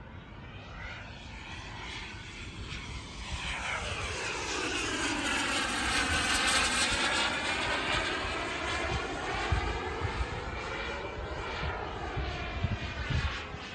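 Radio-controlled model jet fighter flying past: its jet rush grows louder to a peak about halfway through, then fades as it moves away.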